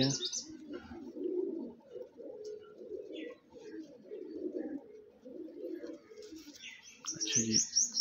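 Domestic pigeons cooing: a low warbling that rises and falls without a break, with a few faint chirps above it.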